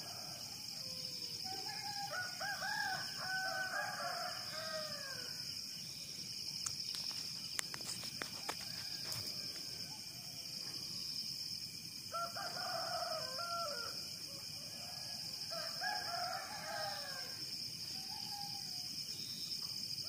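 Rooster crowing before daybreak: one long crow a couple of seconds in, and more crows from about twelve seconds in. Under it runs a steady, high-pitched chirring chorus.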